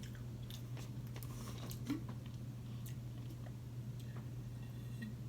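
Quiet chewing: faint, scattered mouth clicks and small wet sounds of someone eating, over a steady low hum.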